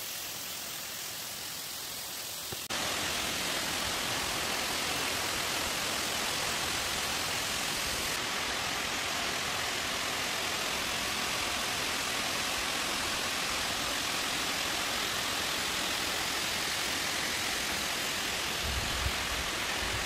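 Waterfall rushing: a steady hiss of falling water that steps up louder about three seconds in and then holds.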